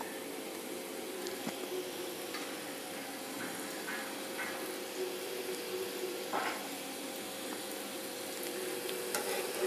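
Stuffed wheat-flour modaks deep-frying in hot oil in a kadhai: a steady sizzle of bubbling oil with a few small pops scattered through it.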